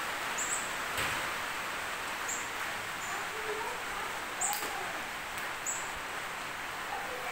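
Short, high bird chirps repeating every second or two over a steady outdoor background hiss, with a couple of sharp clicks.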